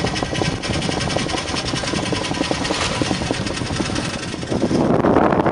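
Wind buffeting the camera's microphone on a sailboat under way, a rapid rumbling flutter that gets louder about four and a half seconds in.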